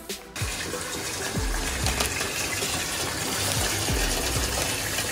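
Water running hard from the tap into a bathtub, a steady gush that starts about half a second in: the bath being filled.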